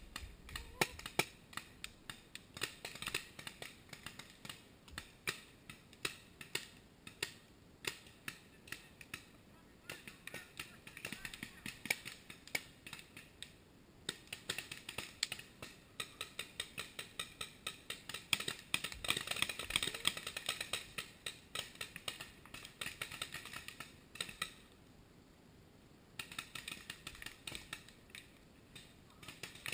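Paintball markers firing in rapid volleys, a dense run of sharp pops, busiest a little past the middle with a short lull about three-quarters through.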